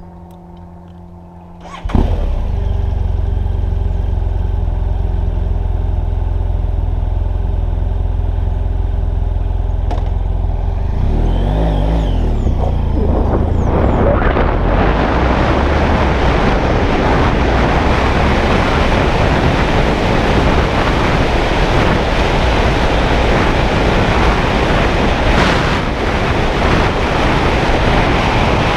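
BMW F 800 GS parallel-twin engine starting up about two seconds in, then idling with a steady low exhaust note. Around eleven seconds in it revs as the bike pulls away, and from about fourteen seconds the riding engine is mixed with heavy wind and road noise.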